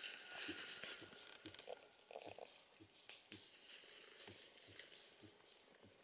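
Leaves and ferns rustling as a person crouches and works at the ground in dense undergrowth, with soft, evenly spaced thumps about twice a second.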